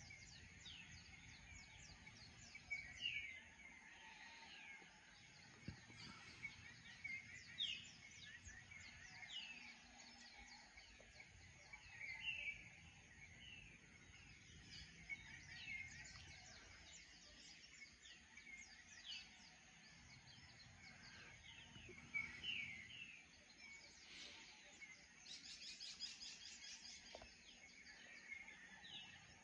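Faint birds chirping and calling: many short, high chirps and whistles at irregular moments, with a rapid run of high repeated notes a few seconds before the end.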